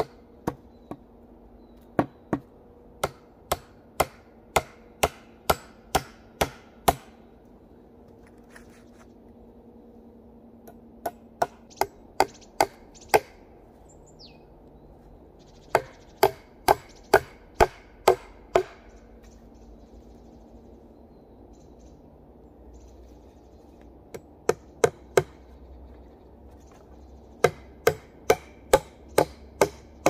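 Hatchet striking a wooden pole in runs of sharp, quick blows, about two to three a second, with pauses between the five runs.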